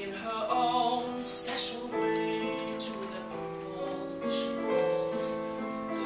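Slow piano accompaniment with a man singing a show-tune ballad over it, his voice wavering on a held note about half a second in.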